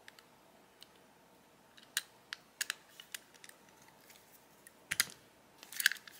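Klein Tools coax crimping tool being fitted onto an F connector on coax cable and squeezed to crimp it: a scattered series of light, sharp plastic-and-metal clicks, the strongest about five and six seconds in.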